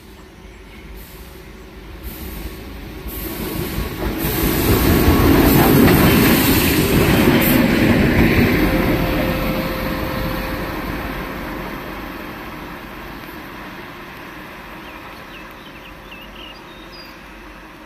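WAG-9H electric freight locomotive passing at speed: a rumble and rattle of wheels on rail that builds, is loudest from about four to nine seconds in, then fades away.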